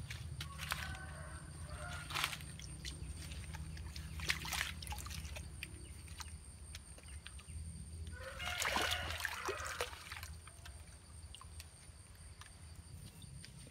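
Water splashing in a shallow creek as a hooked catfish thrashes at the surface and is pulled out on a line. The splashing is loudest for about two seconds just past the middle, with a few short splashes earlier, over a steady low rumble.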